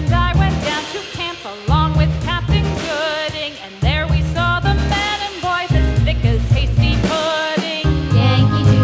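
Background music: a song with a wavering, ornamented vocal line over a steady bass beat.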